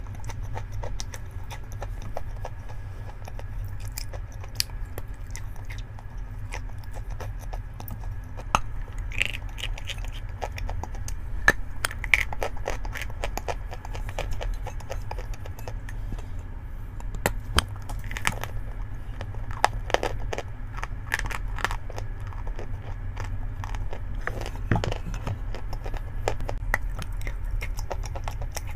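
Chalk being bitten and chewed close to the microphone: irregular sharp crunches and crackles over a steady low hum.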